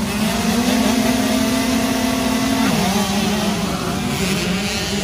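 Dirt bike engine running at high, steady revs; its pitch drops sharply for a moment about three seconds in, then climbs back.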